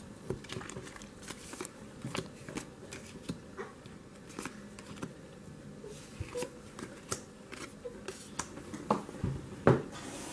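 Trading cards handled and laid down on a wooden table: a string of light clicks and slaps as cards are flicked through and set down, with a couple of louder taps near the end.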